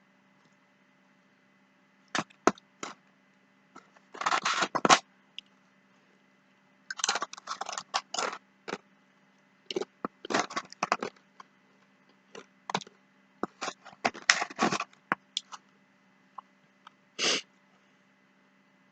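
Eating at close range: irregular clusters of sharp clicks, scrapes and crunches from utensils and food being eaten, with quiet gaps between them.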